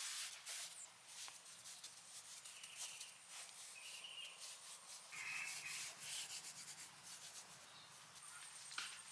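Hands and a small trowel scraping and smoothing wet cement, faint repeated rubbing strokes. A bird calls a few times in the background.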